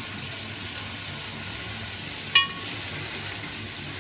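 Chicken pieces frying in oil over a high gas flame in an aluminium pot, a steady sizzle as they are stirred with a spatula. A little over halfway through, the spatula knocks once against the pot with a sharp metallic ring.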